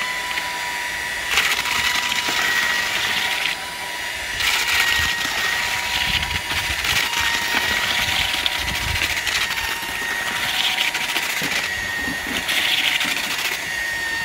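Handheld electric paddle mixer running at steady speed with a constant motor whine, churning hot-mixed quicklime mortar of sand and stone dust in a metal dustbin, with gritty scraping from the paddle. The mortar is still on the dry side.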